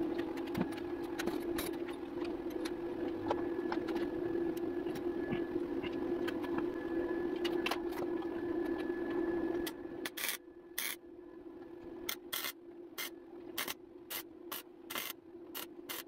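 A steady mechanical hum with small ticks and clatters, then, from about ten seconds in, a string of short crackling bursts of a MIG welder laying tack welds on sheet steel, a dozen or so, each under half a second.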